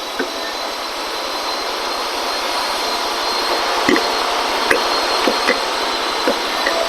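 Steady rushing machine noise that slowly grows louder, with a handful of light clicks and knocks in the second half.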